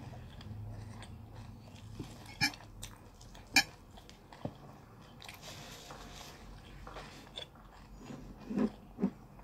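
A person chewing chicken eaten by hand, with sharp wet mouth clicks and smacks. Two of the smacks, near the end, are louder than the rest.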